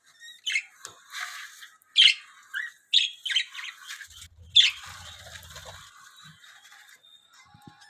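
Budgerigars chattering in an aviary: a series of sharp squawks and chirps in the first five seconds, then quieter twittering.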